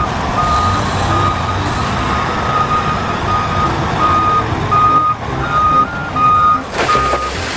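Toy wheel loader's electronic sound effect: reversing beeps at about two a second, a few of them a little higher in pitch, over a steady recorded engine rumble that turns harsher near the end.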